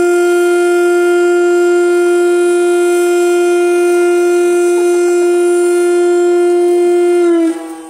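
A loud siren holding one long, steady tone. Near the end its pitch sags slightly and it drops sharply in loudness, still sounding faintly.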